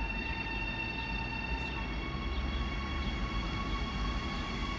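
Electric train approaching through a tunnel: a low rumble under steady whining tones, which step to a new set of pitches about two seconds in.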